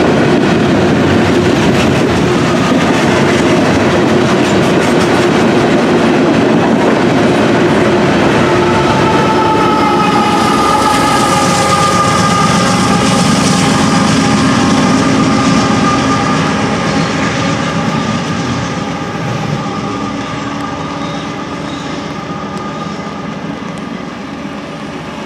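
Norfolk Southern coil steel train rolling past: loaded flatcar wheels clatter steadily over the rails. About halfway through, a locomotive at the rear of the train passes with its engine running and steady whining tones. The noise then fades as the train moves away.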